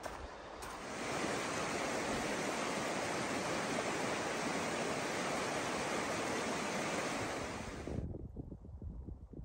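Rushing mountain stream tumbling over rocks, a steady loud rush of water. It cuts off suddenly about eight seconds in, and gusts of wind buffet the microphone.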